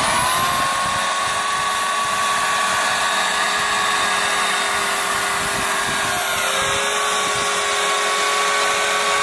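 Chainsaw running steadily at high speed, cutting through a palm tree trunk; its pitch dips slightly about two-thirds of the way through.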